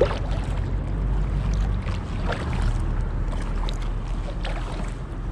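Kayak paddle strokes, the blades dipping and splashing into calm water about every second or so, over a steady low rumble.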